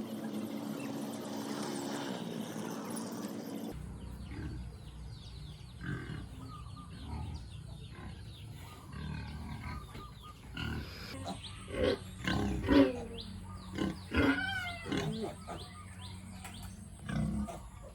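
Pigs grunting and squealing in a run of short calls, loudest about two-thirds of the way through. Before that, a steady droning sound cuts off suddenly a few seconds in.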